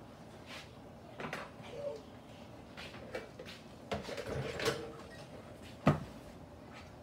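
Kitchen handling noise: several sharp knocks and clicks scattered through, the loudest about six seconds in.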